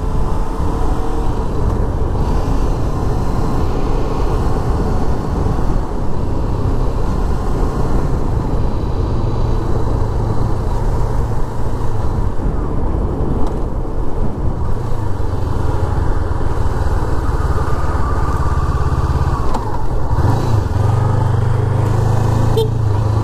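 Sport motorcycle engine running steadily at low road speed, heard from the bike's own mounted camera. The engine note shifts about twenty seconds in.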